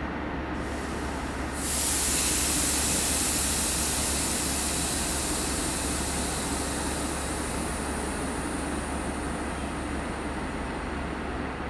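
EP2K direct-current electric locomotive running slowly with a low steady hum. About two seconds in, a loud hiss of compressed air starts abruptly and slowly fades away.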